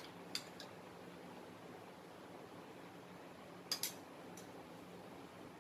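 A few light clinks of a metal spoon against a small glass bowl as ghee is scooped into a pressure cooker: one near the start, a quick pair about two-thirds of the way through and a fainter one after, over a faint steady hum.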